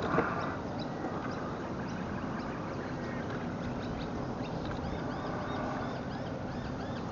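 Birds chirping rapidly, a run of short high calls several times a second starting about two and a half seconds in, over a steady hiss of wind and water.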